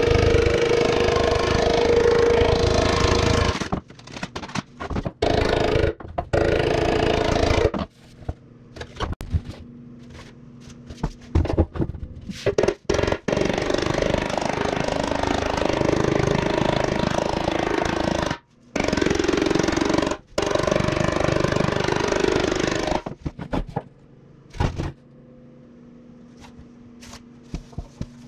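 Rapid metal hammering on a steel motorcycle fuel tank as the knee dents are shaped. It comes in runs of several seconds, with a few separate knocks in the pauses and a steady hum underneath. The runs stop about three-quarters of the way through, leaving only a few knocks and the hum.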